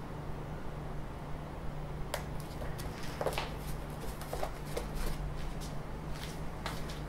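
Irregular sharp clicks and rustles of hands and a pair of cutters working on a delta 3D printer's arms and effector, starting about two seconds in, over a steady low hum.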